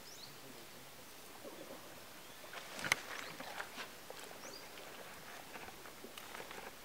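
Faint outdoor ambience with a few short, high bird chirps, one near the start and another about four and a half seconds in, and a single sharp click about three seconds in, the loudest sound.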